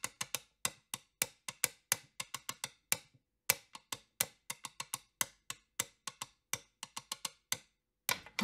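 A run of sharp, dry clicks like taps on a wood block, about four a second in an uneven rhythm, with a brief pause about three seconds in. The clicks stop about a second before the end.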